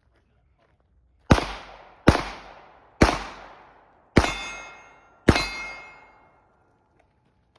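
Five gunshots fired about a second apart, each followed by a fading echo; the last two have a metallic ring.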